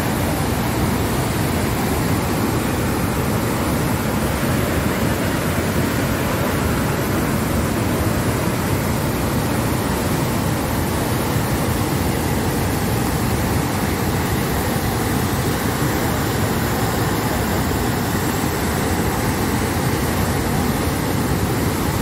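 Floodwater rushing out through the open spillway gates of the Deduru Oya reservoir dam and churning in the stilling basin below: a loud, steady, unbroken rushing.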